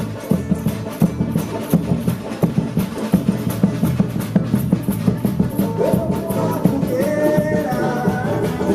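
A live band with a large percussion section playing a steady drum-driven groove at the start of a song, with bass underneath. About six seconds in, a melodic lead line comes in over the drums.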